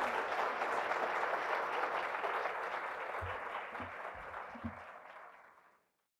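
Audience applauding, with a few faint low thumps, fading out over the last few seconds to silence.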